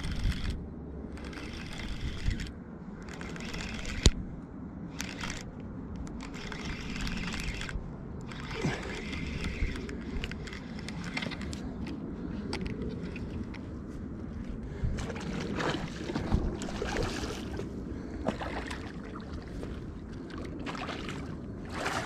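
Rustling and scraping handling noise as an angler works a fishing rod and spinning reel, in irregular bursts over a low steady rumble, with one sharp click about four seconds in.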